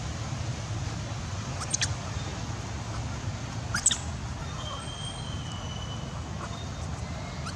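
Two brief, shrill squeaks from a baby macaque, about two and four seconds in, over a steady low background rumble.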